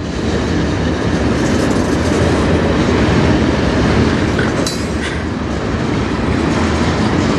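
Freight train rolling slowly past at close range: a steady heavy rumble with wheels clattering on the rails, and a brief high metallic squeal about four and a half seconds in.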